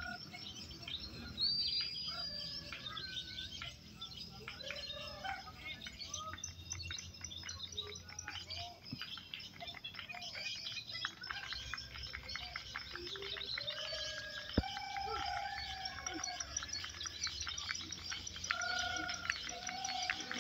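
Many caged songbirds singing at once in a songbird contest: a dense, overlapping mix of chirps, trills and short held whistles. A single sharp tap is heard about fourteen seconds in.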